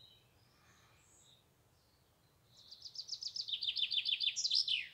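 A small bird singing: a few faint high chirps, then from about halfway a fast trill of repeated high notes that ends in a few quick falling notes.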